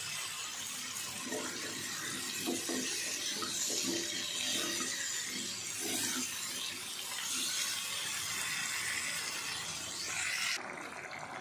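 Potato chunks sizzling as they fry in hot oil and spice paste in a non-stick wok, turned with a wooden spatula: a steady hissing sizzle. The sizzle drops off sharply near the end.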